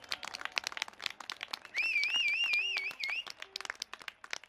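Scattered clapping from a crowd, with a loud warbling whistle that wavers up and down about four times a second for a second and a half near the middle.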